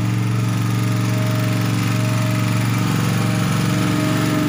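Pelican 1 kVA portable generator's small petrol engine running steadily.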